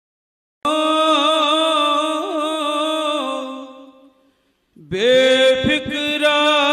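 A man singing a slow devotional verse in long held, wavering notes. The line fades out about four seconds in, and a new line begins with a rising note about a second later.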